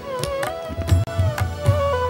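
Instrumental music in Indian classical style: a melody line that slides between held notes, over hand-drum strokes falling a few times a second.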